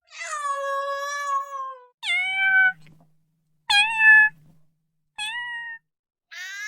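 Domestic cat meowing: five separate meows, the first long and drawn out with a slowly falling pitch, the rest shorter.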